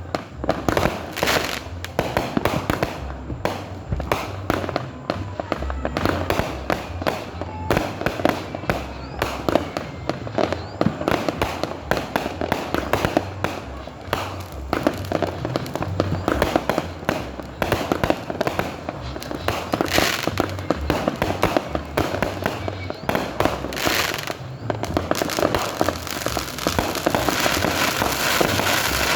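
Fireworks and firecrackers going off without pause, many overlapping sharp bangs and crackles each second.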